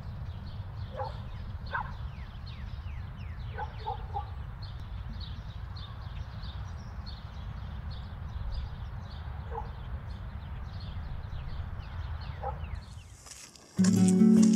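Birds chirping in quick, repeated, falling calls over a low steady rumble, with a few lower animal calls now and then. Music starts abruptly near the end.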